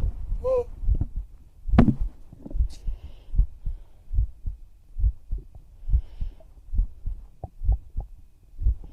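A real human heartbeat: steady low thumps at about 75 beats a minute, with one louder knock about two seconds in.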